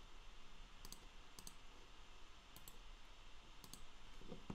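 Faint computer mouse button clicks, four or five spread over a few seconds, some as quick double ticks.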